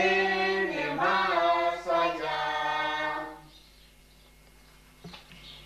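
Unaccompanied voices singing the close of a Spanish hymn, the final notes held and ending about three and a half seconds in. A short soft knock comes near the end.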